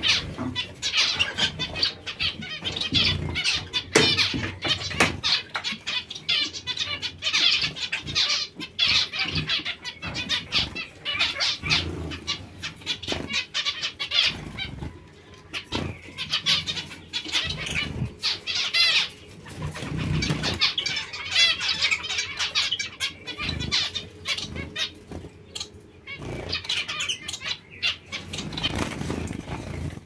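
Captive zebra finches and society finches calling, a busy run of short chirps, with frequent quick wing flutters.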